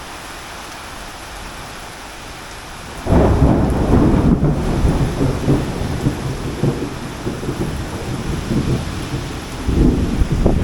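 Heavy rain falling steadily, then about three seconds in a sudden loud, low rumble sets in over it and carries on unevenly, swelling again near the end.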